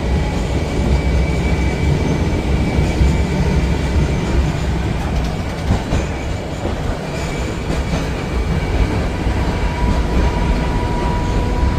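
Old tram running, heard from inside the car: a steady low rumble of wheels on rails, with a thin high whine that comes and goes.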